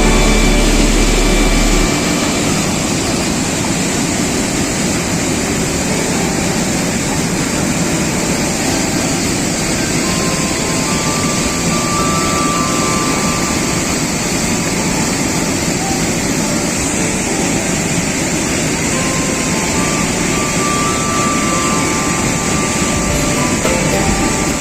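Steady roar of a large waterfall, an even rush of falling water with no rhythm, after a few seconds of music fade out near the start.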